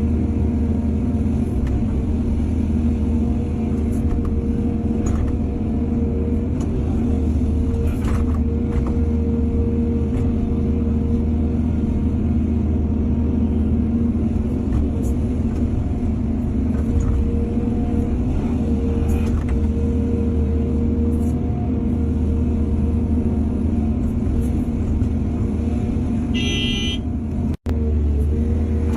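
Heavy diesel engine of an excavator running steadily under load, with scattered light knocks. Near the end a short high-pitched tone sounds, and the sound drops out for an instant.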